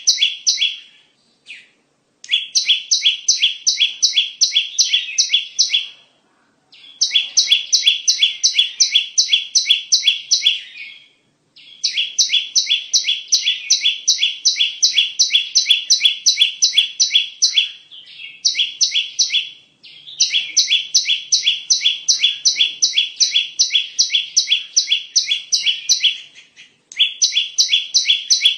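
Perenjak song used as a bird-catching lure call: rapid, evenly repeated high chirps, about four a second, in bouts of several seconds with brief pauses between them.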